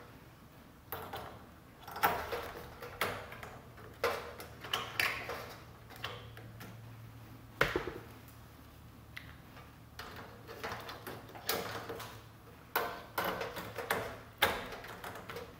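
Irregular clicks and knocks of 4-foot LED tubes being seated and turned into the end sockets of a ceiling fluorescent fixture, plastic and metal parts tapping as they are handled.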